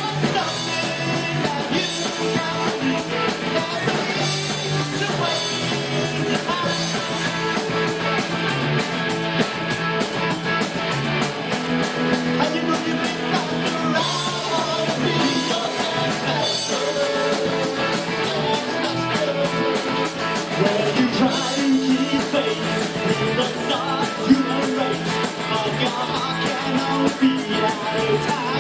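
Live rock band playing with guitar and singing over a steady ticking cymbal beat.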